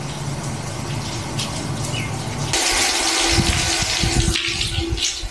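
Wall-mounted outdoor shower head running, its spray of water splashing down with a loud steady hiss that sets in about halfway through.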